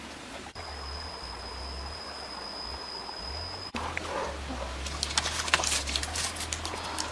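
Small wood fire of twigs and split sticks crackling, with many sharp pops and snaps from about four seconds in over a steady hiss. Before that, a thin steady high whine sits over the hiss and stops suddenly.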